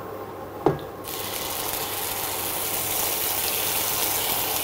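Ground raw onion paste hitting hot oil with cumin seeds and starting to sizzle about a second in. The sizzle is a steady hiss that slowly grows louder. A short knock comes just before it starts.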